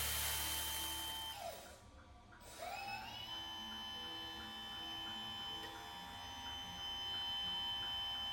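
Whine of an RC construction model's electric motor. It winds down about a second and a half in, spins back up about a second later and holds a steady pitch.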